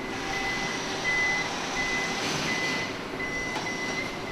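Assembly-line warning beeper sounding a single high tone in short repeated beeps, about two a second, over steady factory machinery noise, with a brief knock about three and a half seconds in.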